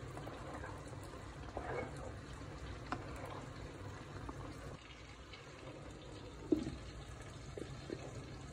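Faint water sound, bubbling and trickling, with a few light clicks and a single knock partway through.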